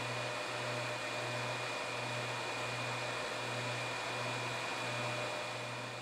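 Twin small 12 V fans of a homemade heater blowing air through PTC ceramic heating elements: a steady rush of air with a faint high-pitched whine.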